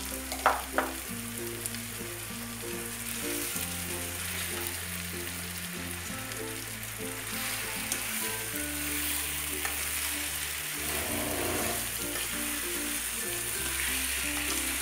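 Chopped green mango pickle frying in mustard oil in a pan, sizzling steadily as a wooden spatula stirs sugar through it, with two sharp knocks about half a second in. Soft background music with sustained low notes plays under it.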